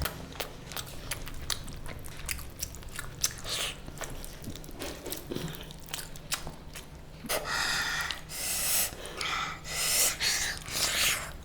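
A person chewing mouthfuls of food close to the microphone, with many short wet mouth clicks and smacks; the chewing grows louder and noisier in the second half.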